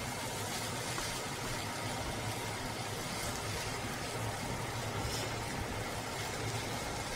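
Rice frying in a wok as it is stirred with a wooden spatula, with a steady low hum and hiss underneath and a few faint clicks of the spatula.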